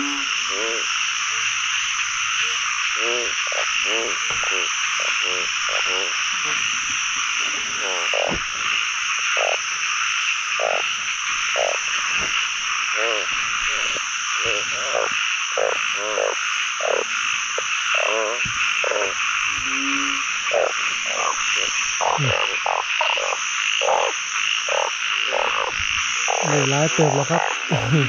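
A dense chorus of frogs calling at a pond. A continuous high trilling haze runs under many separate nearer croaks, which come about once a second with a wavering pitch. Louder, deeper calls come near the end.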